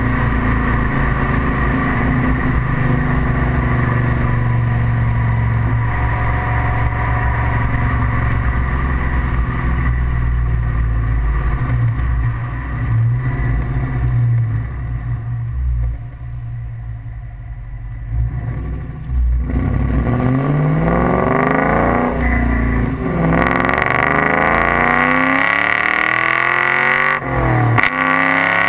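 Ford Mustang Mach 1's 4.6-litre DOHC V8 through SLP long-tube headers, a BBK catted H-pipe and an SLP Loudmouth II cat-back, heard right at the tailpipe while driving. Steady cruising for about twelve seconds, quieter off the throttle for several seconds, then accelerating from about twenty seconds in, the pitch climbing with a brief drop at each of two gear changes near the end.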